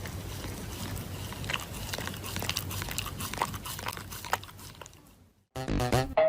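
A puppy chewing, with irregular crunches and clicks over a low hum. It fades out, and electronic music with a beat starts loudly near the end.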